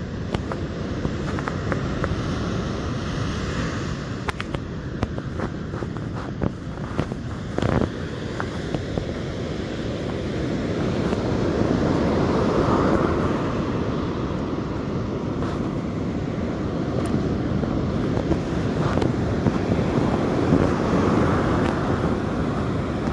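Ocean surf breaking on a beach, with wind on the microphone: a steady low rush that swells about twelve seconds in and again near the end, with scattered clicks in the first several seconds.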